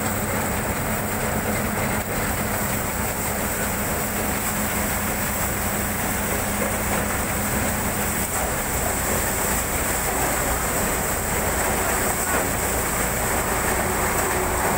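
Tractor-powered paddy thresher running steadily as rice sheaves are fed into its drum: a loud, constant mechanical din with the tractor's engine running beneath it.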